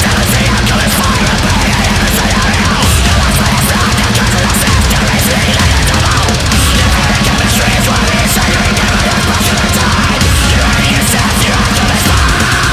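Death metal band playing: distorted electric guitars over fast, even drumming with frequent cymbal hits.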